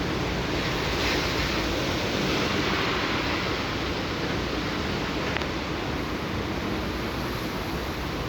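Heavy rain pouring down, a steady rushing hiss with no breaks.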